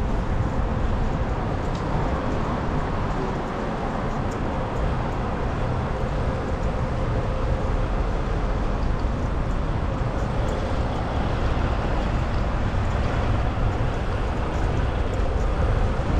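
Steady city street traffic noise, with cars and trucks running along the road beside the sidewalk.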